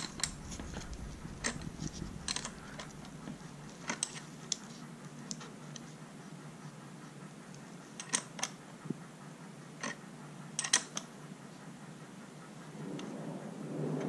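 Scattered light metallic clicks and taps of a small wrench on the rocker-arm adjusting nut of a Troy-Bilt four-cycle string trimmer while its valve clearance is being set.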